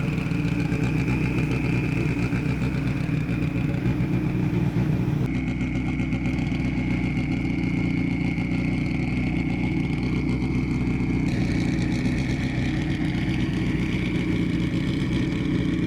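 An engine running steadily at idle, with a steady high whine above it. The sound changes abruptly twice, about five and eleven seconds in.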